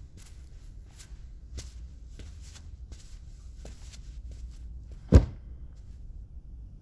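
Foley sound effects: soft, irregular rustling and scuffing, like light steps or cloth movement, then a single heavy thump about five seconds in.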